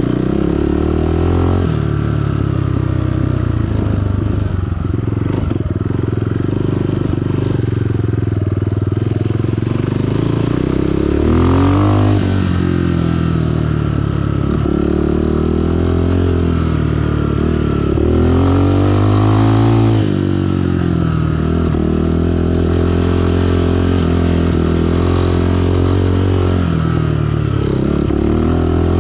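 SSR SR189 dirt bike's single-cylinder four-stroke engine running under way on a trail. Its pitch rises and falls with the throttle, climbing sharply in revs twice, around the middle and about two-thirds through.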